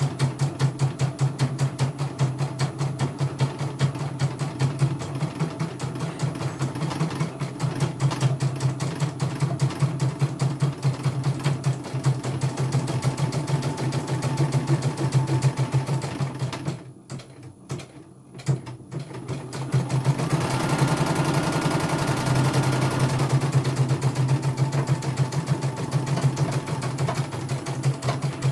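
CNY computerized embroidery machine stitching a design, with rapid, even needle strokes over a steady motor hum. It stops for about three seconds partway through, then starts stitching again.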